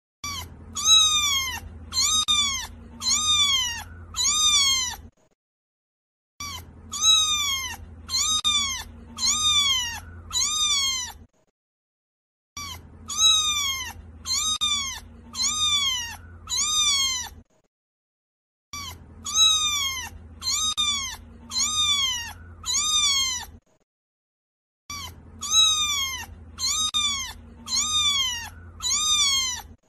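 Cat meowing: a run of five high meows about a second apart, each rising then falling in pitch. The same five-meow sequence breaks off into dead silence and repeats identically five times, a looped sound clip rather than live sound.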